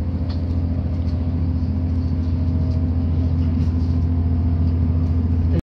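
Cabin noise inside a moving diesel passenger train: a steady low engine drone with the rumble of the train running on the track, growing slightly louder as it goes. It cuts off abruptly near the end.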